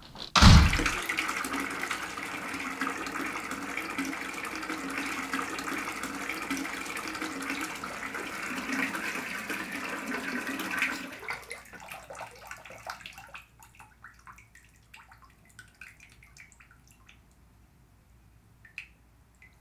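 A bathtub spout running steadily into the tub, after a loud thump about half a second in. About eleven seconds in the flow is shut off and tails away over a couple of seconds, leaving a few drips from the spout.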